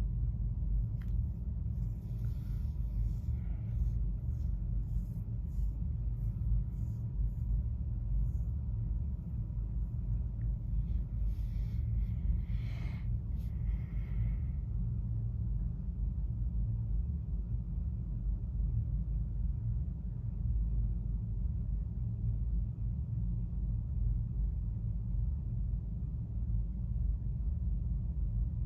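Steady low rumble throughout, with a run of faint, short, high chirps from small birds during the first half, strongest about halfway through.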